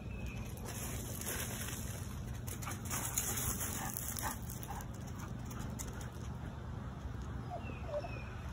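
A dog whining briefly near the end, over a steady low rumble and a few faint high chirps.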